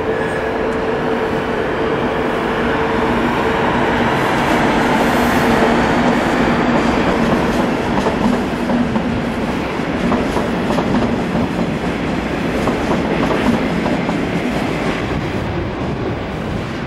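A train moving at close range, rumbling with a steady hum that fades about halfway through, and wheels clicking over rail joints, the clicks thickest in the second half.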